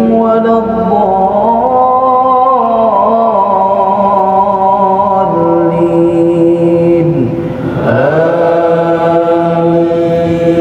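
An imam's male voice reciting the Qur'an aloud in a slow, melodious chant, holding long notes with ornamented turns. There is a short break about two-thirds of the way through before the next phrase begins.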